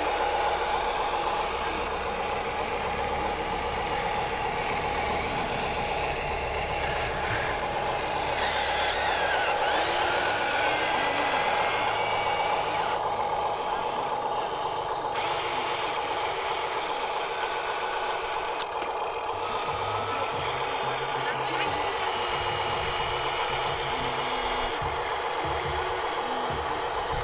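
Huina RC excavator's electric drive whining steadily while its metal bucket scrapes through dirt and tips soil into a toy dump truck's plastic bed, with gritty rubbing and scraping that is loudest about eight to twelve seconds in.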